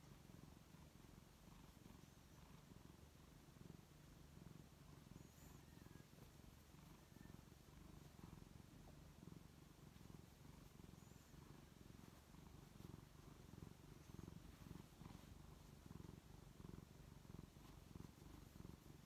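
Orange tabby cat purring steadily, a faint low rumble, while its scalp is pinched and massaged: the purr of a relaxed, contented cat.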